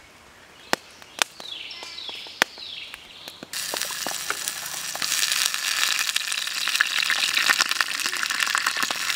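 A few sharp clicks and faint high falling chirps, then about three and a half seconds in, a sudden loud sizzle as liquid hits the hot frying pan; the sizzling crackles on steadily and grows a little louder.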